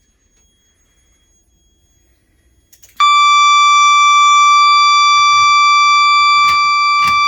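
Fire alarm speaker sounding a loud, steady continuous tone that comes on abruptly about three seconds in, after near quiet. It is the fire-alarm evacuation signal that indicates a report of a fire in the building.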